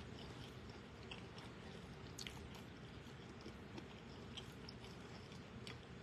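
Faint chewing of a fried lobster sandwich, with a few small sharp mouth clicks, over a steady low room hum.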